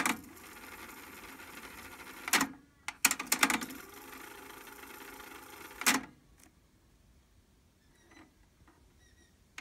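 Technics RS-TR373 cassette deck transport: clicks and clunks of the buttons and the tape mechanism engaging, with a steady whir of the tape winding at speed in two stretches of about two seconds each. The last few seconds are nearly silent, with a couple of faint clicks.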